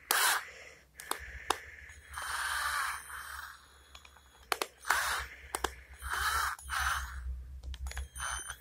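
Small clicks and scrapes of steel bits and the plastic case of a Bosch V-Line bit set being handled, as a hand searches through the rows of bits, with several short rushes of scraping noise.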